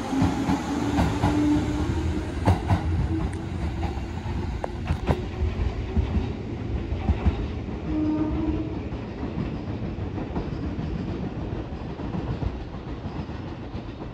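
Seibu 4000 series electric train pulling out of the station: a low running hum with wheels clacking over rail joints, fading as the train moves away.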